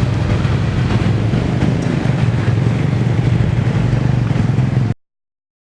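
Steady engine rumble with a low hum, cutting off abruptly about five seconds in.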